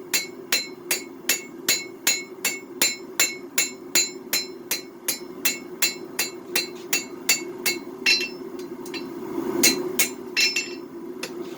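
Hand hammer striking a twist-Damascus knife blade on an anvil in an even rhythm, about three ringing blows a second, over a steady low hum. After about eight seconds the blows thin out to a few scattered strikes.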